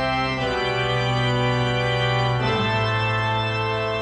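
Background music of sustained organ chords, the chord changing twice.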